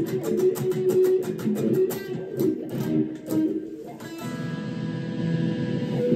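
Electric guitar played through a Donner Vowel wah pedal into a small combo amp: quick single-note picking, then a chord left to ring from about four seconds in, with picking starting again near the end.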